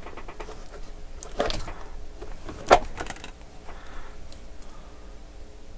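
Small handling noises at a workbench while getting out alcohol and a cotton swab to clean a circuit board: a quick run of light ticks at the start, a short scrape about a second and a half in, and a single sharp click a little later.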